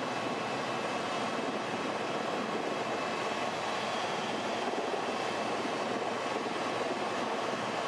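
Helicopter running steadily: an even rushing drone with a few faint high whining tones.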